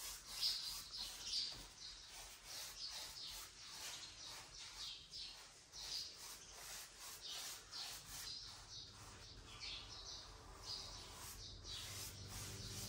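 Sponge rubbing and dabbing paint onto a wall: soft, irregular scrubbing strokes, about one or two a second.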